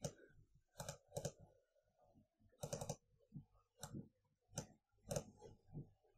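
Quiet, irregular clicking of a computer mouse, about eight clicks with some in quick pairs, over a faint steady hum.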